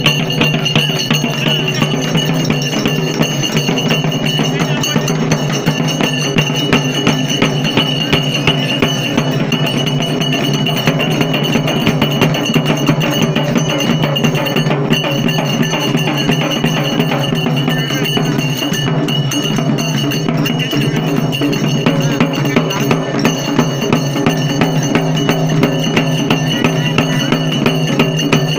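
Loud, fast drumming with music, the strokes coming in a dense, steady rhythm that doesn't let up.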